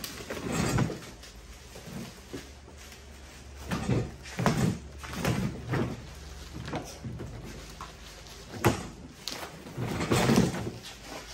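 Bubble-wrapped steel lift parts being handled and pulled out of a wooden shipping crate: plastic wrap rustling in irregular bursts, with knocks of metal against the crate's wooden sides, one sharp knock near the end.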